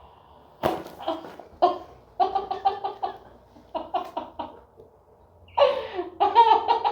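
A single sharp crack from a chiropractic adjustment about two-thirds of a second in, followed by a person laughing in repeated bursts of giggling, loudest near the end.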